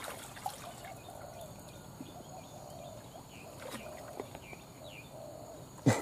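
Faint outdoor background of small birds chirping and calling, with light trickling and sloshing of shallow muddy water being waded and groped through. A short loud sound right at the end.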